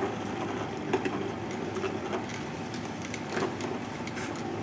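Twin-gear masticating juicer running, its two gears crushing and squeezing vegetables: a steady machine hum with irregular crackles and snaps as the fibre breaks down.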